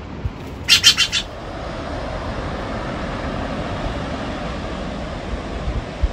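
Steller's jay giving a quick run of four calls about a second in, followed by a steady rush of surf and wind.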